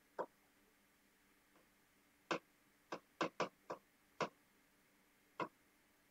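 Chalk tapping and scratching on a blackboard during writing: about eight short, sharp taps at uneven intervals, several coming close together in the middle.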